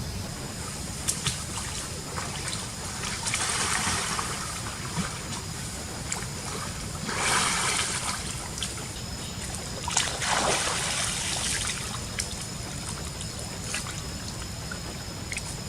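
Steady rain and trickling water, with three louder bursts of noise, each about a second long.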